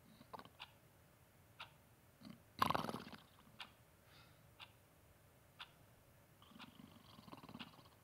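Mantel clock ticking about once a second while a sleeping person snores, with a loud snort about two and a half seconds in and a longer snore near the end.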